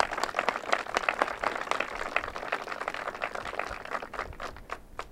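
Audience applauding, many hands clapping together, the claps thinning out near the end.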